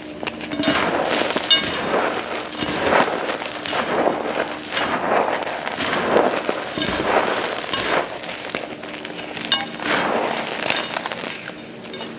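A block of reformed gym chalk being crushed, crunching and crackling in repeated waves about a second apart, with sharp snaps as pieces break.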